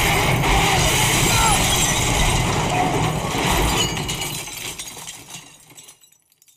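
A car crashing and tumbling through dry brush, with crunching and breaking glass. The noise is loud for about four seconds, then fades away to near silence.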